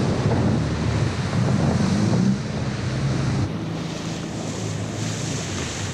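Rushing water of a muddy river rapid with wind buffeting the microphone, heard from a raft running the rapid. It is loudest in the first two seconds and steps down about two and a half seconds in.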